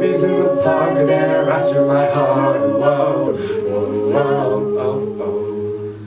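Mixed a cappella group singing, a lead voice over sustained chords from the backing singers. A high held note drops to a lower one about halfway through.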